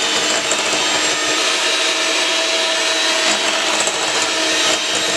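Electric hand mixer running steadily, a motor hum with a steady whine, its beaters creaming butter and sugar in a glass bowl.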